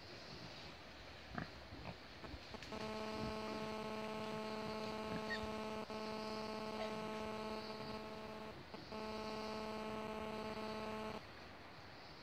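A steady, even buzzing hum, like mains hum, starts about three seconds in. It drops out for a moment twice and stops about a second before the end. Faint scattered rustles and ticks lie underneath.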